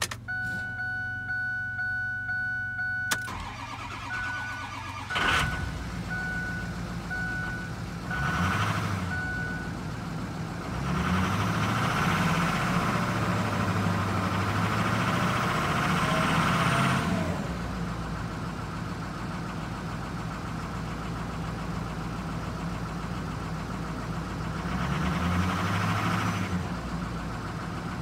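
A dashboard warning chime pings repeatedly, then the 2005 Ford F-350 XL's engine cranks and starts about five seconds in and settles to idle. It is revved three times: briefly at about eight seconds, held up for several seconds from about eleven to seventeen seconds, and again near the end.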